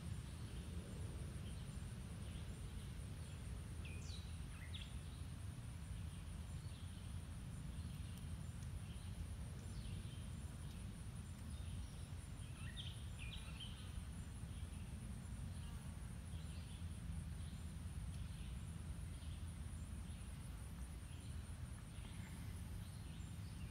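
Quiet outdoor ambience: a steady high-pitched insect trill, scattered short bird chirps, and a low background rumble.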